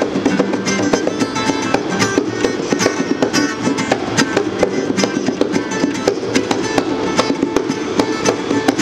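Acoustic guitar strummed with a pair of bongos played alongside, the drums giving many quick, sharp hand strikes over the guitar chords.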